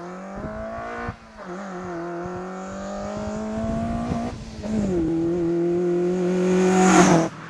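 Car engine running hard at high revs as the car approaches, growing louder, with two brief drops in the engine note about one second and four and a half seconds in. It cuts off suddenly just before the end.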